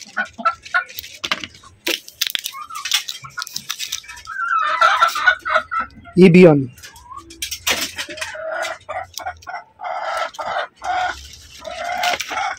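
Caged chickens clucking, with a rooster crowing about four to five seconds in, amid short clicks and rustles from bowls and a capsule strip being handled.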